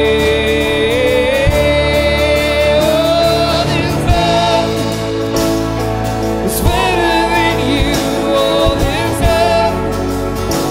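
A contemporary Christian worship band playing a song, with a man singing the lead over guitars, keyboard and drums. Near the start he holds one long note that slides upward.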